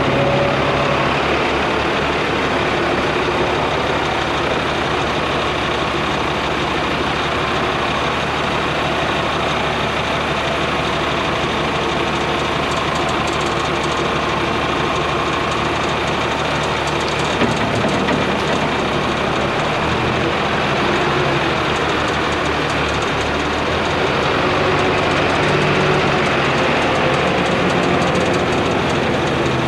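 Diesel tractor engines running steadily in a farmyard as a front-loader tractor works loading dung into a muck spreader, its engine note shifting a little partway through.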